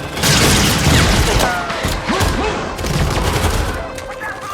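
Film battle sound effects: a dense spell of gunfire and blasts that starts a moment in and stays loud, with gliding high-pitched tones over it.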